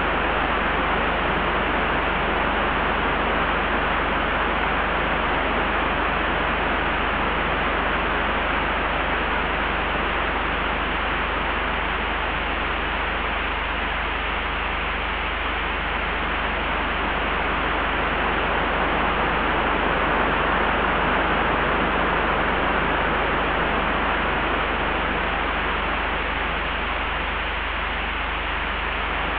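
Wind ambience: a steady rushing hiss over a constant deep rumble, swelling gently about two-thirds of the way through.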